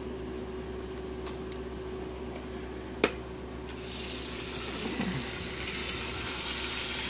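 A sharp click about three seconds in. Then a Lego 9-volt train motor starts running, and the train rolls around plastic track with a steady high hiss-like rattle.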